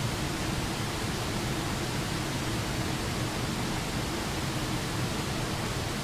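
A low waterfall spilling over a rock ledge into a shallow rocky creek, making a steady, even rush of water with no change.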